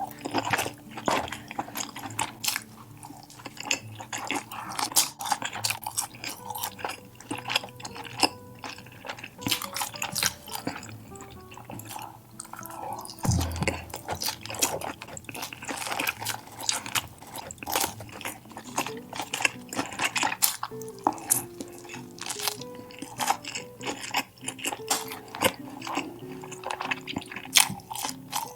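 Close-miked eating: dense, irregular wet chewing and mouth clicks, over soft background music. A single low thump comes about 13 seconds in.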